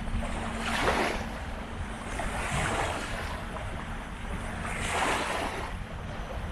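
Small waves washing onto the shore in repeated swells every couple of seconds, over a steady low rumble of wind on the microphone.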